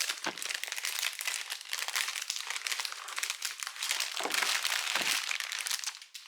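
Packaging being unwrapped and handled, crinkling continuously, with a few soft thumps.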